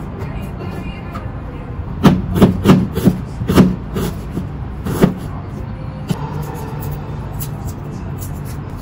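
Chef's knife chopping on a plastic cutting board: about six sharp chops bunched between two and five seconds in, then lighter taps. A steady low hum runs underneath.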